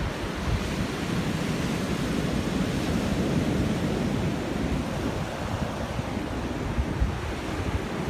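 Atlantic surf breaking and washing up a sandy beach in a steady rush, with wind buffeting the microphone in low rumbles.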